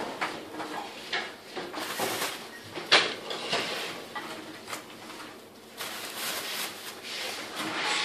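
Scattered light taps and knocks of footsteps on a tiled floor, the loudest about three seconds in.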